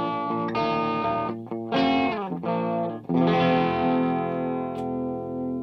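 Electric guitar played through a Tone City Golden Plexi overdrive pedal, with a crunchy, overdriven tone. Short chords are followed by a slide down in pitch about two seconds in, then a chord struck about three seconds in and left to ring.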